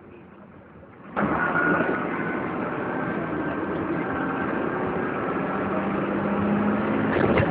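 Dennis Dart SLF bus's diesel engine heard from inside the saloon: it revs up suddenly about a second in as the bus pulls away, then runs on steadily under power, its pitch creeping slightly upward. A thud sounds near the end.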